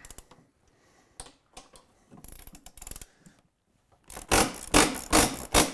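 A patch-Loctited bolt on a snowmobile's rear suspension arm being wrenched out. A few faint scrapes, then about four seconds in a rapid run of loud grinding creaks as the bolt turns against its thread-locking patch. The noise is the good sign that the bolt is coming out while the shaft is not turning.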